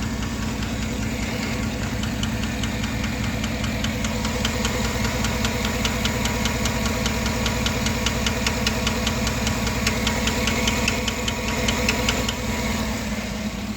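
The 2009 GMC Sierra's 5.3L LY5 Vortec V8 idling with a rapid, even ticking over its steady running. The owner takes the tick for a failing cylinder 1 intake-side lifter.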